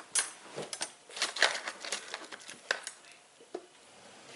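Spatula scraping and tapping while spreading pizza sauce: a quick run of short scrapes and clicks for about three seconds, then two light knocks.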